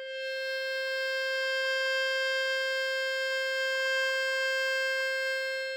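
A single sustained musical tone, about C5 in pitch and rich in overtones, starts suddenly and is held steady at one pitch and level. It is sounded as a healing tone to accompany a slow meditative exhale.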